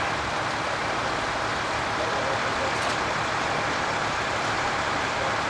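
Heavy demolition equipment running steadily, a constant noise without distinct impacts.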